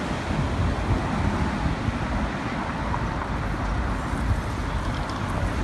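Steady road traffic noise of a busy city street: cars and a taxi passing close by, heard mostly as a low rumble.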